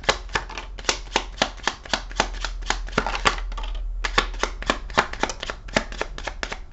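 A deck of tarot cards being shuffled by hand: a rapid run of crisp card clicks and slaps, about five a second, with a brief pause a little past halfway.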